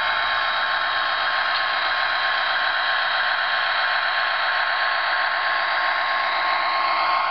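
HO-scale model train running past close by: a steady whirring of its motor and wheels on the rails with a faint steady whine, growing slightly louder near the end as the locomotive comes by.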